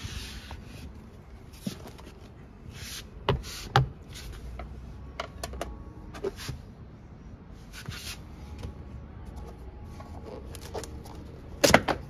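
Flat-head screwdriver prying and scraping at a car's door-sill scuff plate and plastic sill trim, with scattered sharp clicks and knocks. The loudest clicks come in a quick cluster near the end as the trim is pulled by hand.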